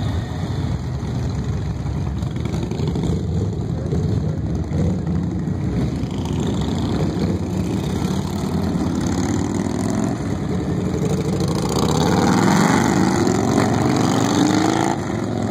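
Touring motorcycle engines running as a group of riders pulls away in a line, with a steady low rumble; in the last few seconds an engine rises in pitch as it accelerates and grows louder.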